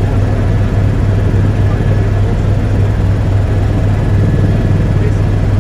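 Tour helicopter in flight heard from inside the cabin: a loud, steady drone of engine and rotors with a constant low hum underneath.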